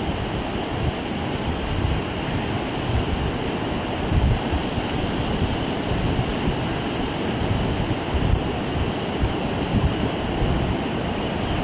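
Ocean surf breaking and washing up the beach in a steady rush, with wind buffeting the microphone in uneven low rumbles.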